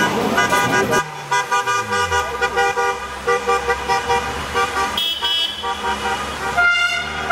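Car horns honking in short, repeated toots, as celebrating drivers do, with a car engine running underneath.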